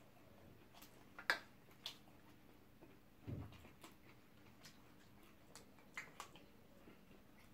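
Quiet close-up eating sounds: scattered sharp clicks and smacks from chewing and spoons against the plate. The loudest click comes about a second in, and a soft thump comes a little past three seconds.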